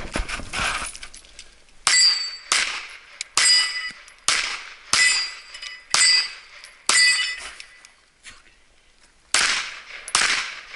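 Pistol shots fired one at a time, nine in all, mostly about half a second to a second apart, with a pause of about two seconds before the last two. After several shots comes a short high metallic ringing, typical of steel targets being hit.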